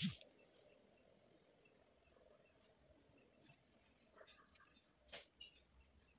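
Near silence: quiet room tone with a faint steady high-pitched whine. There is a short click at the very start and a few faint ticks a little past the middle.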